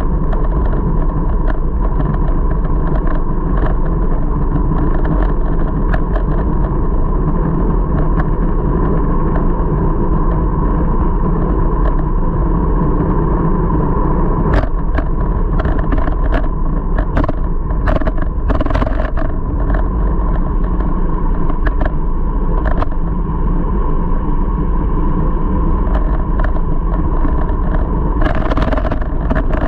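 Steady rumble of wind and road vibration picked up by a handlebar-mounted camera on a road bike riding in a group, with a steady hum and scattered sharp knocks from the bike and its mount, thickest in the middle.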